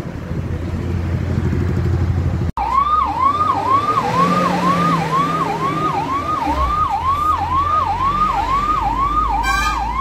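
A low engine rumble, then after an abrupt cut an emergency vehicle's siren sounds in rapid repeating sweeps, about two a second, over a vehicle engine.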